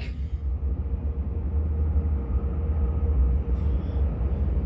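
Omnéo Premium electric double-deck train running between stations: a steady low rumble with a faint, thin whine above it. A brief sharp click comes at the very start.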